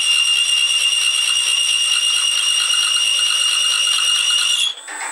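Dull 20 mm twist drill in a homemade drill-milling machine, turning at about 250 rpm, squealing steadily with a piercing multi-pitched screech as it cuts into a rusty steel plate; the drill needs sharpening. The squeal cuts off suddenly near the end, leaving a faint high motor whine.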